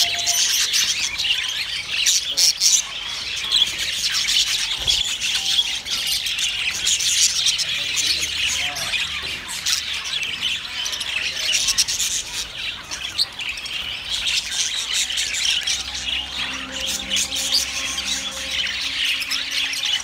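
A crowd of caged budgerigars chattering and chirping together: a dense, unbroken twittering of many quick high calls overlapping.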